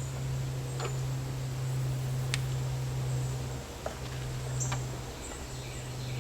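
A steady low hum with a few scattered sharp clicks as seatbelt retractor parts and their bracket are handled and fitted together.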